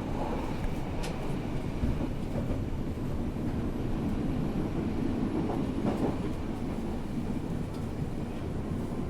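Berlin U-Bahn (underground) train running: a steady rumble of wheels on track, with a few faint clicks.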